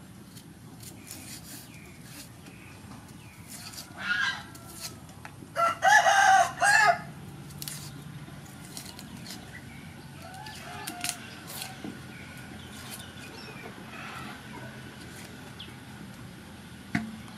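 A rooster crowing once, loudly, about six seconds in, after a shorter call about two seconds earlier. Light crackling of dry onion skin being peeled off with a knife runs underneath.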